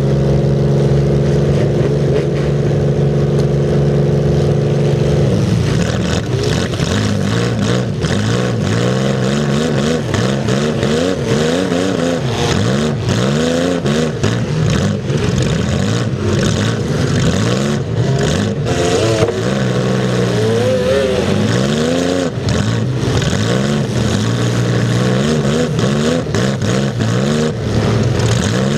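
Demolition derby car's engine, heard close up from over the hood, revving up and down as the car drives and manoeuvres. For the first five seconds it holds a steady pitch.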